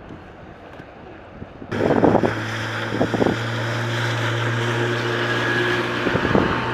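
Wind noise, then a sudden cut about two seconds in to a small boat's outboard motor running at a steady pitch, with wind on the microphone and a few short thumps.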